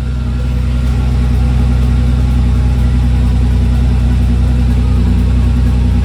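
Lamborghini Murcielago V12 engine running steadily at a low, even pitch.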